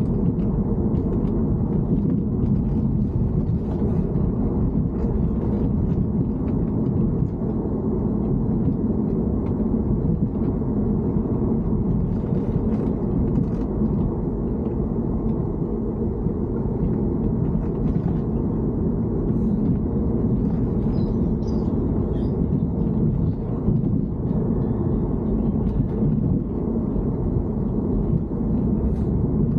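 Steady low rumble of a BMW E90 (3 Series) car in motion, the car being recorded for an abnormal noise; a few faint ticks sound now and then over it.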